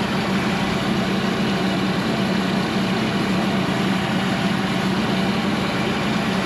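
Cook's AC-36 sawmill's diesel engine running at a steady speed, with a constant hum.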